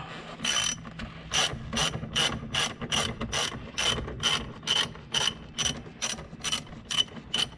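Ratchet wrench loosening a bolt: quick back-and-forth strokes, each a short burst of clicking, about two to three a second.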